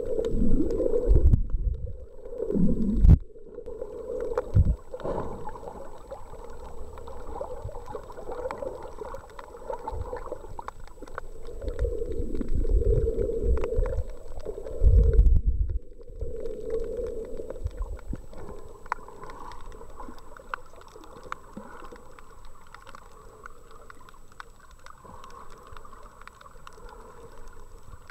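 Muffled underwater noise at a submerged camera: low rumbling and gurgling of moving water, with a few heavy low thumps in the first few seconds and again about halfway, growing quieter and steadier toward the end.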